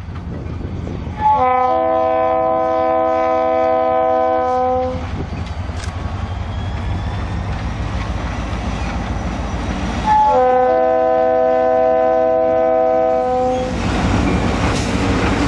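Diesel freight locomotive sounding its multi-chime air horn in two long blasts of about four seconds each, one just over a second in and the other about ten seconds in, over the low rumble of its engine as it passes. Covered hopper cars then roll by on the rails.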